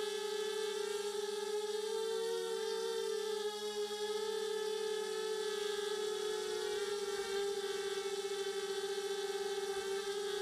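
HobbyKing FPV250 quadcopter's four RCX 1804 2400KV brushless motors and propellers whining in flight, heard through the quad's own onboard camera. A steady whirring tone whose pitch wavers with throttle, dipping and rising about two seconds in and again about seven seconds in.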